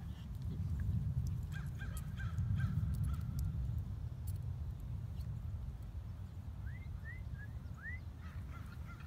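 Low, uneven rumble of wind on the microphone, with a few faint short high calls; several of them rise sharply in pitch near the end.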